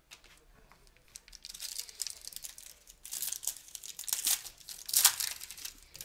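Foil trading-card pack wrapper being torn open and crinkled by hand, an irregular rustle that is loudest about five seconds in.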